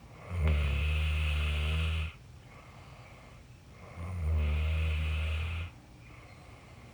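A person snoring: two long snores, each about a second and a half, the second starting about four seconds in.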